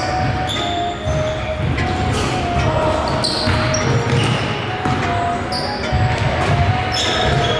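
Basketball being dribbled on a hardwood gym court, with short sneaker squeaks and players' voices calling out during play.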